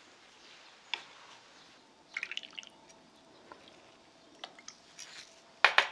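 Kimchi broth poured and dripping from a metal ladle into a stoneware bowl, with a few light clicks and a sharper clatter near the end.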